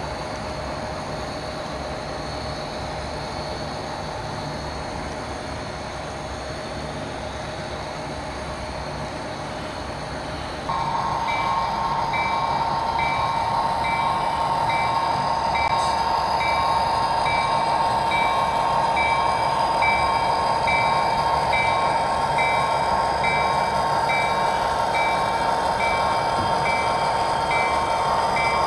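Train sounds on an HO scale model railroad: a steady mix of running noise and held tones. About eleven seconds in it abruptly gets louder, and a high tone starts pulsing roughly once a second, like a locomotive bell.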